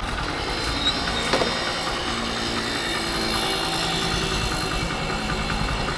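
Tractor diesel engine running steadily while the tractor is driven along, with a low rumble.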